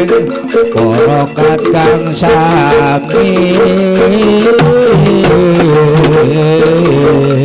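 Javanese gamelan accompaniment for a Jathilan hobby-horse dance: kendang hand drums beating steadily over held metallic gong and metallophone tones.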